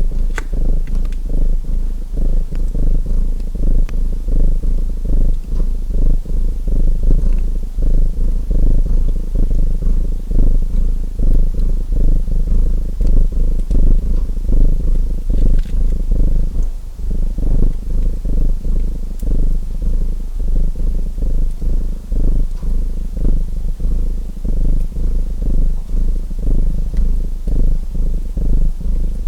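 Domestic cat purring close to the microphone: a steady low rumble that swells and fades in regular cycles with its breathing. Occasional faint crackles of a wood fire sit underneath.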